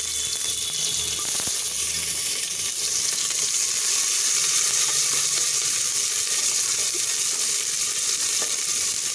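Sliced onions sizzling steadily in hot oil in a stainless-steel pressure cooker pot, with a wooden spoon stirring them near the end.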